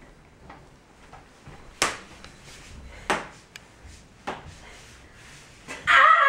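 Three sharp knocks of wooden play swords or sticks striking, about a second and a quarter apart, then near the end a girl's loud cry that falls in pitch.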